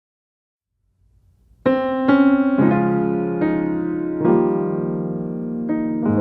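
Solo piano music, beginning about a second and a half in after silence: notes and chords struck one after another at a slow pace and left to ring.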